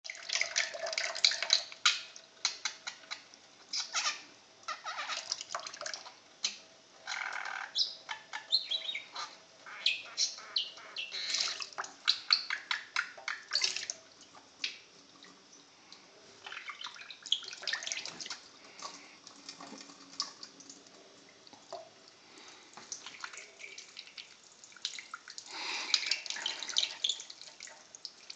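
Thin stream from a kitchen tap splashing over a budgie bathing on a cupped hand, in irregular bursts that come and go, with a few budgie chirps.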